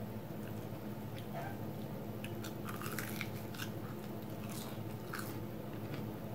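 Crunchy bites and chewing into the crisp crumb crust of fried breaded cheese sticks, a scatter of short crackles over a few seconds. A steady low hum runs underneath.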